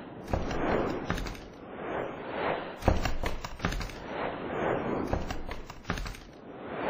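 Produced intro sound effects: a run of whooshes that swell and fade about once a second, broken by sharp impact hits and clicks, the loudest hit about three seconds in.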